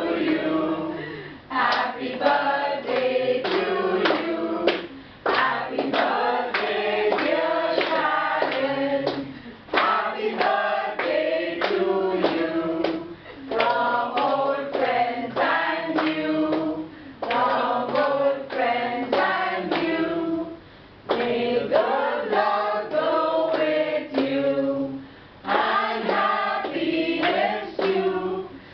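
A group of mixed voices singing a birthday song together in phrases, with people clapping along in time.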